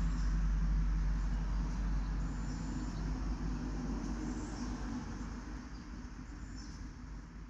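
A low rumble that slowly dies away, with faint, short, high chirps of insects over it.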